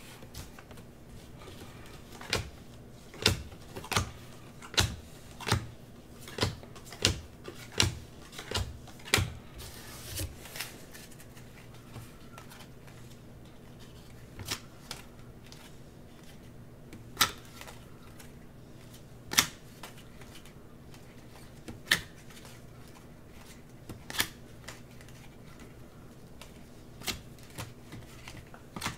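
Trading cards being handled and set down on a table while being sorted, a sharp click each time: about one a second at first, then fewer and further apart after about ten seconds, over a faint steady hum.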